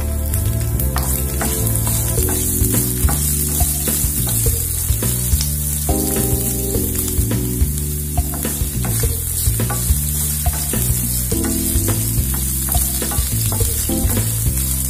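Sliced garlic and green chillies sizzling in hot oil in a nonstick frying pan, a steady hiss, while being stirred with scattered clicks of the spatula against the pan.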